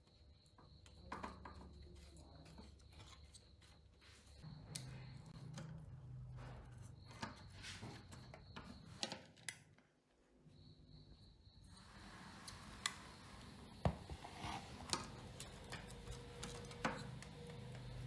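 Scattered light clicks and taps of small parts and tools being handled on a workbench, over a faint low hum.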